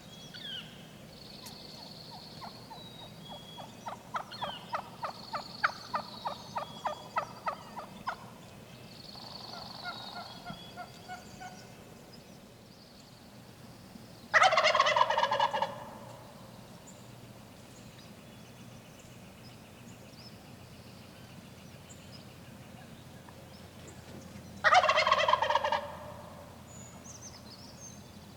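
Wild turkey gobbler gobbling twice, about ten seconds apart; these are the loudest sounds. Earlier comes a quick run of about a dozen turkey yelps, with faint songbirds in the background.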